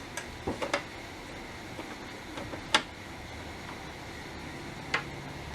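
Radio parts being handled: a few sharp clicks and light knocks, three close together at the start, one louder click near the middle and another near the end, over a faint steady background hum.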